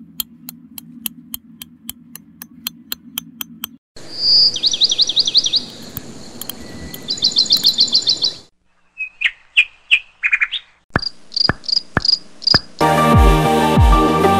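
Birds chirping in rapid high trills and short repeated calls, preceded by steady ticking about three times a second over a low hum. Near the end, music with a heavy beat cuts in.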